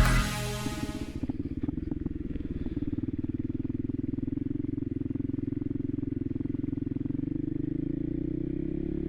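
Voge 300 Rally's single-cylinder engine running steadily while riding, with a rapid even pulse. Background music cuts off in the first second.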